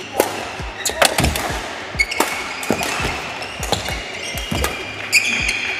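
Badminton rally on an indoor court: repeated sharp cracks of rackets striking the shuttlecock, low thuds of footwork, and court shoes squeaking on the floor about two seconds in and again near the end.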